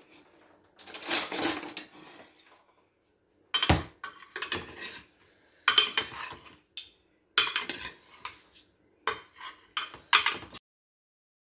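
A utensil scraping and clattering against a metal oven tray as roasted potato wedges are tossed in it. A longer scrape comes about a second in, then a string of sharp knocks and short scrapes that stop shortly before the end.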